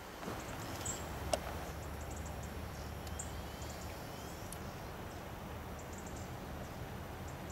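Outdoor mountainside ambience: a steady low rumble on the microphone with a few faint high chirps, and one sharp click about a second and a half in.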